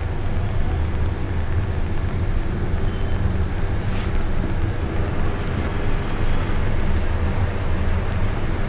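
General split air conditioner running: a steady low hum with a constant rush of noise over it. A brief faint chirp sounds about four seconds in.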